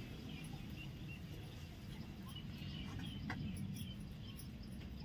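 Faint background ambience: a low steady noise with scattered short high chirps from small birds.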